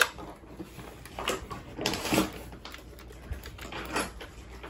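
Hard plastic parts of a gel blaster clicking and knocking as they are handled: a few separate clicks spread through, with a small cluster about two seconds in.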